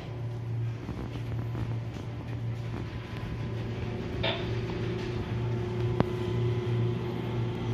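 Steady low hum of shipboard machinery with a faint fixed whine above it. A short metallic rattle comes a little past four seconds in and a sharp click about six seconds in, as the latch of a walk-in cold-room's steel door is worked and the door is opened.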